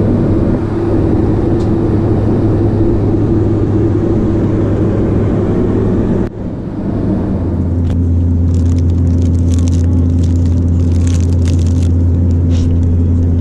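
Loud, steady engine drone heard from inside a vehicle. About six seconds in it breaks off abruptly and resumes at a slightly lower hum, with irregular light clicks and rattles through the second half.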